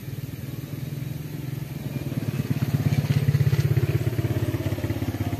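A small engine running with a low, rapid pulsing, growing louder to a peak about halfway and easing off again, as a vehicle passing by.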